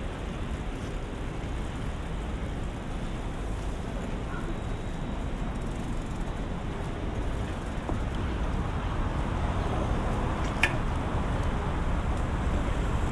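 Steady city street noise with a low traffic rumble, growing a little louder after about eight seconds, and one short sharp click a few seconds before the end.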